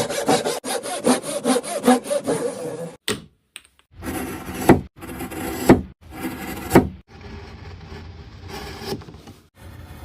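Hand saw cutting wood in quick back-and-forth strokes, broken by a few abrupt pauses. The last few seconds hold a fainter rubbing sound.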